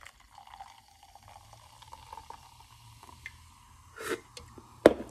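Hard seltzer poured from a can into a cup, splashing and fizzing steadily for about three and a half seconds, its tone rising slightly as the cup fills. Near the end come a short sip and a sharp knock.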